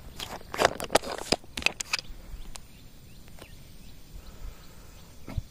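Footsteps and scuffs on a concrete road, a quick run of sharp steps in the first two seconds that then thins out. Faint bird chirps sound in the background.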